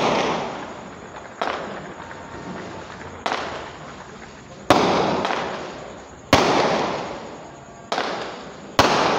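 Aerial fireworks bursting overhead: seven sharp bangs about every second and a half, each trailing off in a long echoing decay. The bangs about halfway through and near the end are the loudest.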